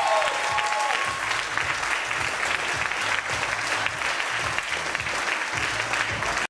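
Audience applauding at the end of a spoken-word performance, with a few long held cheers that die away about a second in.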